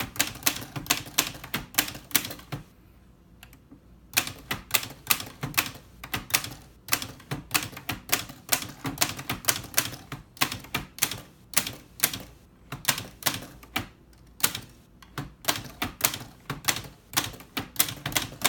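1948 Olivetti MP1 manual typewriter being typed on, its typebars striking the platen in a quick run of sharp clacks, about four a second. The typing stops briefly about three seconds in, then carries on.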